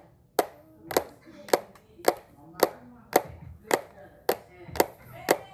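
Hand claps in a steady beat, about two a second, ten sharp claps in all.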